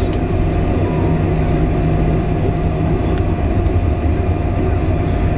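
Cabin noise of a Boeing 747-400 taxiing after landing: a steady low rumble from the idling engines and the wheels rolling on the taxiway, with a faint steady whine over it.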